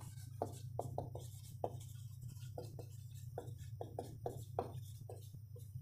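Marker pen writing on a whiteboard: a run of short, separate strokes at an uneven pace, two or three a second, over a low steady hum.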